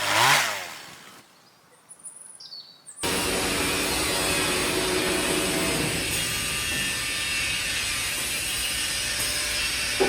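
A loud whoosh, a short quiet gap with a few faint high chirps, then about three seconds in a sudden start of steady woodworking machinery noise that runs on evenly.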